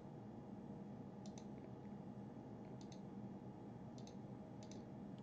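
Computer mouse button clicks, each a quick press-and-release double tick, about four of them spread a second or so apart, over a faint steady room hum.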